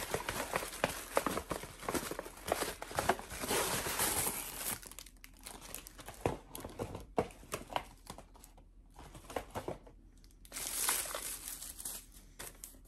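Tissue paper and a paper gift bag crinkling and rustling as they are unwrapped by hand: dense crackling for about the first five seconds, then a few scattered crackles, and another burst of crinkling near the end.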